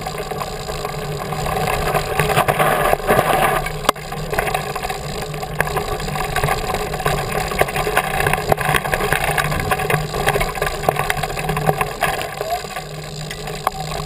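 Mountain bike rolling over a rough gravel and rock fire road, heard from a camera clamped to the handlebar: a steady rumble of tyres and wind on the microphone, with frequent clicks and knocks as the bike and camera mount jolt over the bumps.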